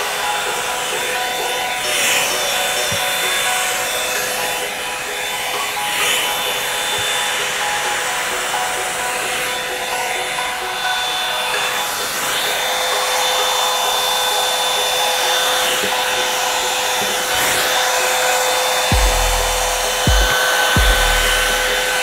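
Revlon One-Step hair dryer brush running steadily on its high-heat setting: a rush of air with a steady motor whine. A few low thumps come near the end.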